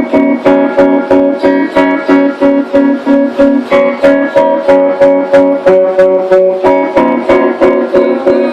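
Guitar music: the same chord picked over and over in a fast, even rhythm, about three strokes a second.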